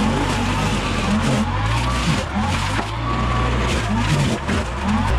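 Compact diesel tractor running under load, its rear PTO-driven mulcher chewing into brush and small trees. The engine pitch sags and recovers several times as the mulching head bites into the wood.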